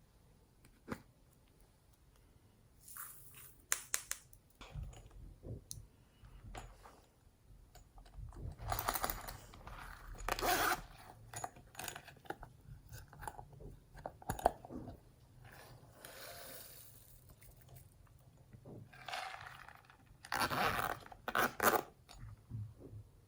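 Slime being worked by hand: irregular sticky crackles, pops and squelches, louder in a stretch around the middle and again near the end.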